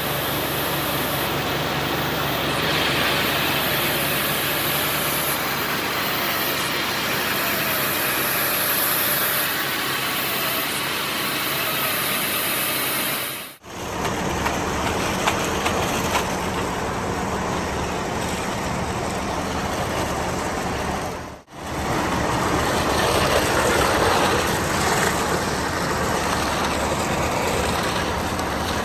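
A heavy truck engine runs steadily during a concrete pour, with a dense rushing noise over a low hum. The sound drops out briefly twice, a little under halfway and about three-quarters through.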